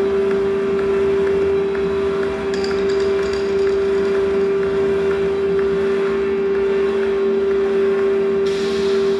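Electronic drone of a contemporary dance score: one loud sustained tone with fainter tones above it, under faint regular ticks. A few brief high chirps come about three seconds in, and a burst of hiss comes in near the end.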